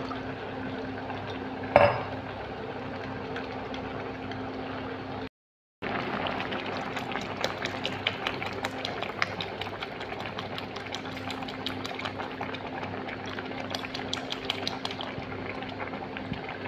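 A spoon stirring custard powder in a ceramic mug, with one sharp clink about two seconds in. Then, after a brief silence, milk and vermicelli boiling hard in a steel pot: a steady bubbling with many small pops.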